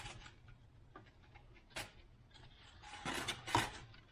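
Hand-handling noises from corrugated plastic (Coroplast) model fuselage parts being pressed together in a test fit: a few scattered rustles and knocks, with a louder cluster about three seconds in.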